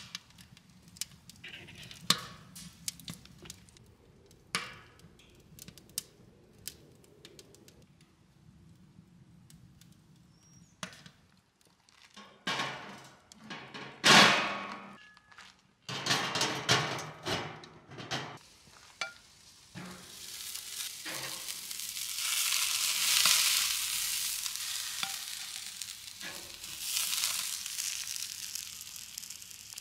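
Wood fire crackling and popping in a smokeless fire pit, then a loud clatter of metal knocks as the grill grate over the coals is handled. From about two-thirds of the way through, strips of meat sizzle steadily on the hot grate.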